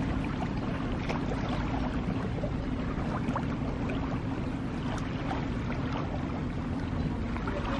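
Harbour water lapping gently against moored small boats, with faint small splashes and ticks over a low steady rumble.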